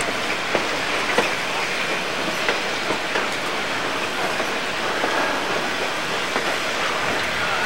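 Steam-hauled train running, heard from aboard a passenger car: a steady rumble and clatter of wheels on the rails, with scattered sharp clicks.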